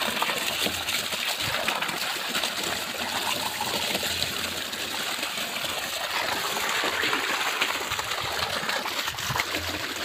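Water gushing steadily out of a PVC pipe outlet, splashing against a child's hands held in the stream.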